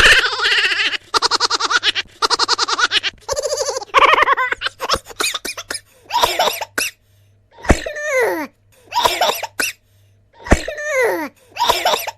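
Cartoon comedy sound effects: a fast, pulsing high-pitched cartoon laugh for about the first four seconds, then a short vocal call repeated about five times, each one sliding down in pitch, roughly one every one and a half seconds.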